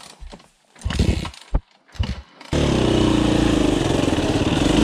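A few dull knocks and thumps, then, cutting in suddenly about two and a half seconds in, a dirt bike engine running steadily under the rider on a forest trail, its pitch wavering slightly.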